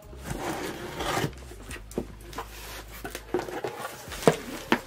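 Scissor blade drawn along packing tape, slitting open a cardboard shipping box with a rasping, scraping sound, followed by scattered clicks and a few sharp knocks near the end.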